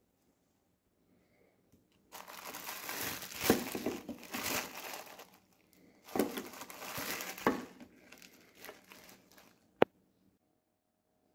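Plastic bag of minced meat crinkling as it is handled, in two long bouts of rustling, followed by a single sharp click near the end.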